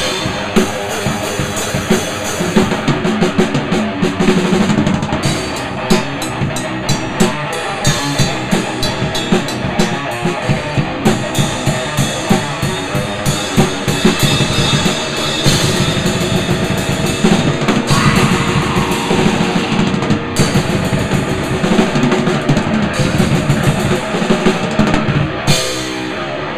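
Acoustic drum kit played with sticks in a dense, fast rock beat: rapid snare and bass drum hits with steady cymbal crashes and wash.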